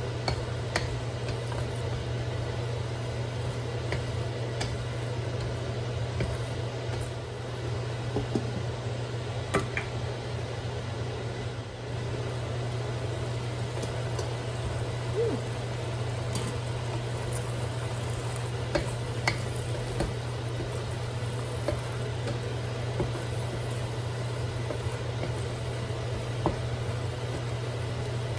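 Vegetables stir-frying in a wok on an induction cooktop: a steady low hum from the cooktop under a faint sizzle, with a wooden spatula knocking and scraping against the wok every few seconds.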